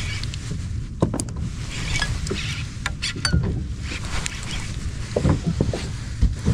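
Water lapping and splashing against a fishing kayak's hull over a steady low rumble, with a few sharp knocks and clicks, about a second in and again around three seconds.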